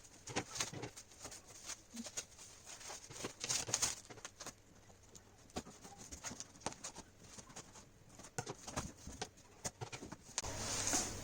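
Parcel box being opened and unpacked by hand: irregular clicks, scrapes and rustles of cardboard and packing.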